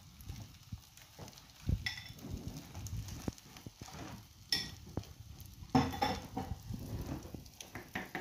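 Food sizzling in a frying pan on a gas stove, with irregular clinks and knocks of a fork against a bowl and dishes.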